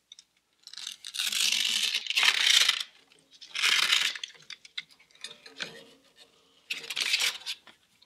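Velcro-backed sandpaper being peeled off a drum sander's drum, its hook-and-loop backing ripping loose in four pulls with short pauses between. The strip is being lifted to rewrap a section that puckers.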